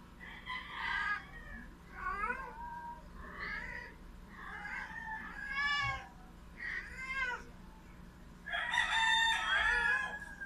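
A series of about six high-pitched animal calls, each short and wavering in pitch, the last one, near the end, the longest and loudest.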